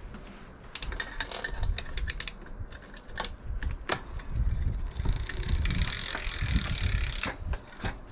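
Bicycle mechanism ticking and clicking in a fast run, like a freewheel ratchet, over a low rumble. About two-thirds of the way through comes a loud hiss lasting about a second and a half.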